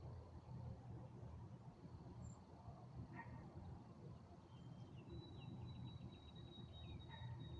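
Faint birdsong in the evening: a short call that drops in pitch, given twice about four seconds apart. From about five seconds in, a thin high steady trill sounds over a low background rumble.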